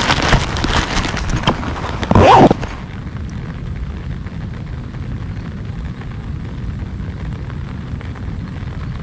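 Wind buffeting the camera microphone: gusty and loud with crackles for the first few seconds, then cutting abruptly to a steadier low rumble.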